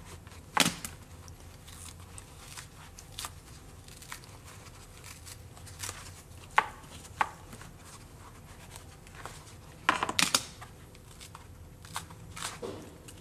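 Foam being torn and pulled from a hard case's foam insert, in short separate rips and rustles with pauses between them. The sharpest rips come near the start, about six to seven seconds in, and in a cluster around ten seconds.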